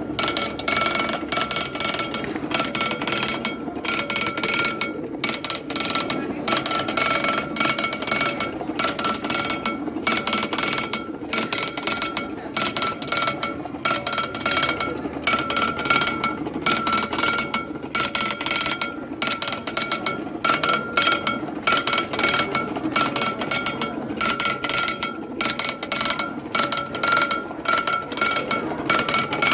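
Old hand-cranked corn sheller being turned steadily: a continuous metallic clatter of rapid clicks, with a high ringing tone that swells and fades throughout.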